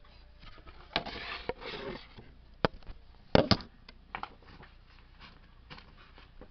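Handling noise: rustling, then a few sharp knocks and clicks, the loudest pair about three and a half seconds in, as the camera is moved about and comes to rest.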